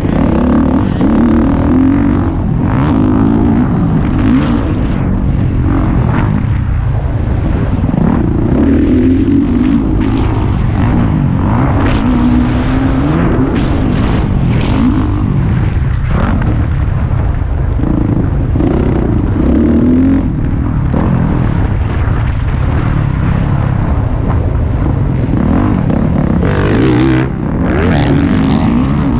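Honda motocross bike engine revving hard and backing off again and again as it is ridden around a dirt track, with wind rushing over the microphone. Near the end the engine briefly drops away, then picks up again.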